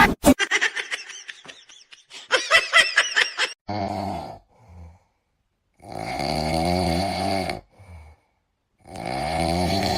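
A pet snoring: long rasping breaths about every two to three seconds, after a run of short high squeaks in the first few seconds.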